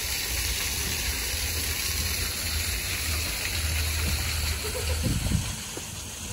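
Steady rush of a small man-made waterfall splashing, falling off a little in level near the end.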